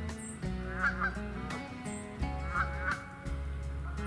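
Canada geese honking, a pair of honks about every two seconds, over background music with a steady held bass line.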